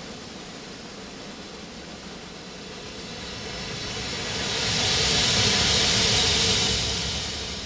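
Ambient sound-art composition: a swell of hissing noise builds from about three seconds in, peaks a couple of seconds later and fades away near the end, over a faint steady tone.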